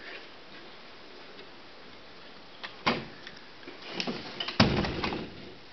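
Ice-skate blades knocking and scraping on icy brick paving: a single sharp knock about three seconds in, then a cluster of clacks and scrapes a second later, the loudest just after the middle.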